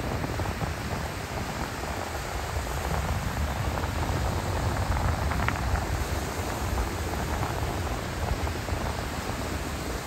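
Waves breaking and washing up a sandy beach, a steady rush of surf, with wind buffeting the microphone as a low rumble.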